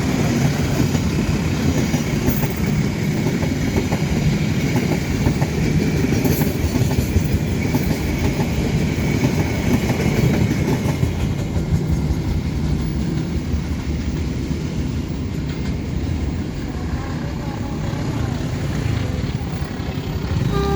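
Train passing: a steady rumble of wheels on the rails, easing slightly in the second half.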